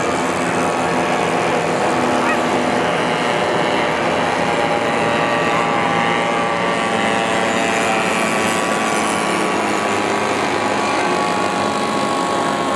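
Engines of several radio-controlled WW1-style model airplanes running together in flight, a steady drone of overlapping engine tones that drift up and down in pitch as the planes circle.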